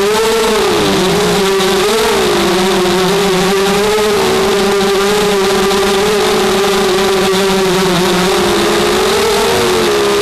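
QAV250 quadcopter's four brushless motors and propellers whining steadily in flight. The pitch wavers up and down with the throttle, with small dips about a second in, near two seconds in and near the end.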